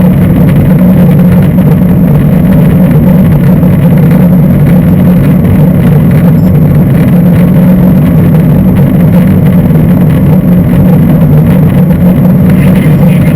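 Steady cabin noise of a Boeing 747-400 airliner in flight, heard from a seat at the rear of the cabin. The Rolls-Royce RB211 engines and the airflow make a loud, even, low drone.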